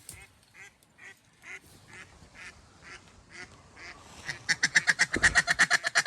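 Duck quacking: a slow run of short quacks, then, about four seconds in, a much louder rapid series of quacks, several a second.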